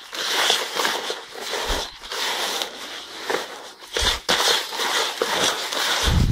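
Gritty crunching and scraping of a thick, damp mix of shell grit, calcium carbonate and dolomite being worked by hand in a bucket, with a few dull knocks.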